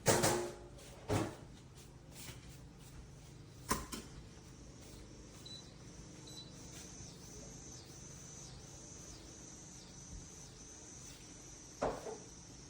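A few sharp knocks and clunks of hard objects being handled or set down: a loud one at the start, another about a second in, one near four seconds and one near the end. Between them there is a faint steady low hum and a thin high whine.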